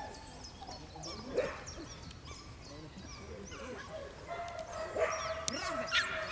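A police working dog barking and yipping while it bites and tugs at a decoy's padded leg.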